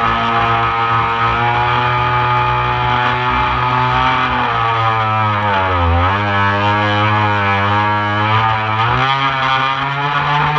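Radio-controlled model boat's motor running, recorded from its own bow, with water splashing off the hull. Its pitch drops and climbs back again around the middle, then holds steady.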